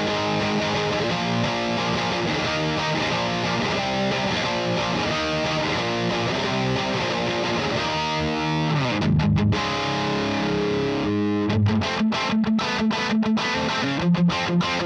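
Electric guitar with P90 pickups, a Gibson Les Paul Tribute, played through a Slamurai overdrive pedal into a Satellite Neutron tube amp, giving a mildly overdriven tone. Ringing strummed chords give way, about eleven seconds in, to short choppy stabbed chords with brief gaps between them.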